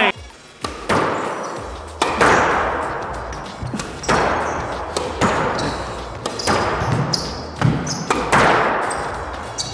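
Squash ball being struck by racquets and smacking off the court walls in a fast rally, a sharp hit about every second, each one ringing on in the enclosed court's echo.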